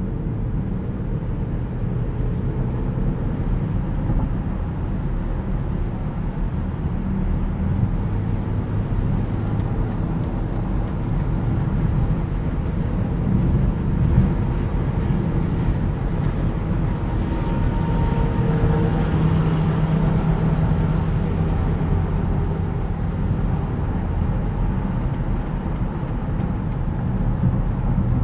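Inside the cabin of a 2020 BMW X5 xDrive40i cruising at highway speed: steady road and tyre noise with a low hum from its 3.0-litre six-cylinder engine.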